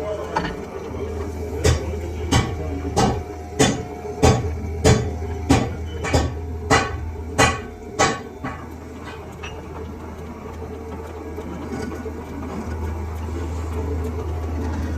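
Hammer blows on metal: about eleven sharp strikes at an even pace, roughly one and a half a second, over a steady low machine hum, tailing off with a couple of lighter taps.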